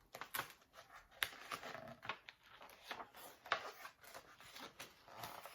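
Paper rustling and a string of short clicks and taps as the pages of a large picture book are handled and turned.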